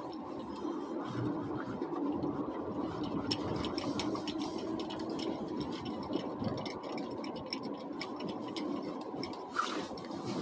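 Steady cabin noise of a car driving slowly on a snow-covered street: a low hum with light crackles and rattles, and a brief hiss near the end.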